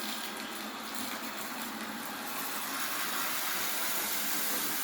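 Onson F007C robot vacuum running steadily: a constant motor hum over a whirring hiss.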